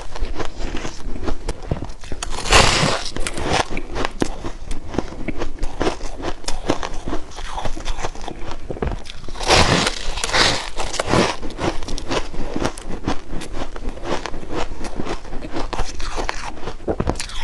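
Close-miked crunching of a purple rose-petal shaved-ice block being bitten and chewed: a dense run of small crackles, with loud crunching bites about 2.5 s in and again around 10 s.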